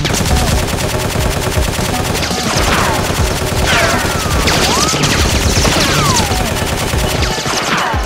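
Dubbed machine-gun sound effect: continuous rapid automatic fire, with falling whines about once a second.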